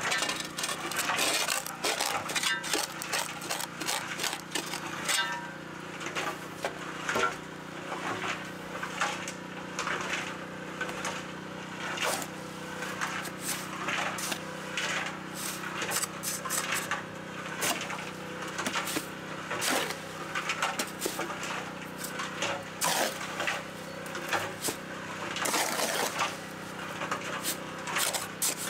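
Shovel and trowel scraping and knocking as wet concrete and soil are packed around a quartzite rock set upright in a hole, in irregular scrapes and taps, over a faint steady low hum.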